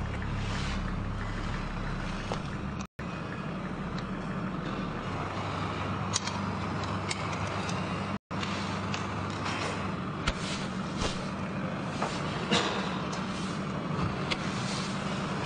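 Steady low hum under a hiss, with a few faint clicks scattered through it.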